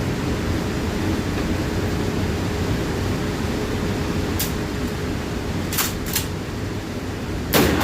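Steady wind rumble on the microphone, a few short clicks in the second half, then near the end a single sharp bang that rings out: a shot from a Kel-Tec KSG pump shotgun.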